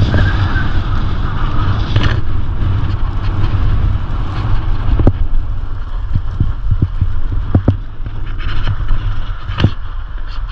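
Wind buffeting the microphone of a skier's camera during a fast downhill run, over the hiss of skis sliding on groomed snow. A few sharp knocks stand out, about five seconds in, near eight seconds and near the end.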